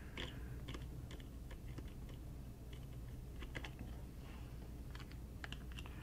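Faint, scattered small clicks and taps of fingers handling the internals of an open tablet: plastic and metal parts, ribbon cables and tape being moved, over a steady low hum.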